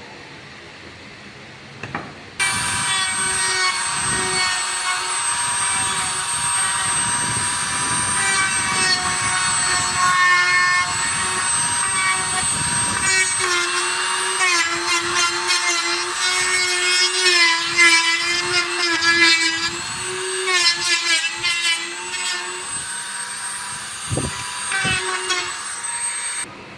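UPVC corner cleaning machine starting up about two seconds in and running with a loud steady whine, its cutters machining the welded corner of a PVC profile; from about halfway the pitch wavers and chatters as the cutters work the seam, and the machine cuts off shortly before the end.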